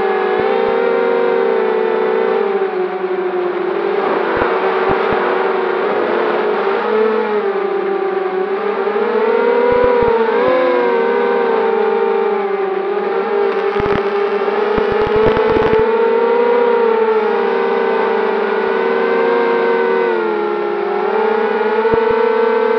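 Eachine Racer 250 FPV quadcopter's brushless motors and propellers whining, heard from its onboard camera, the pitch wavering up and down with the throttle. A few brief low thumps come through around the middle.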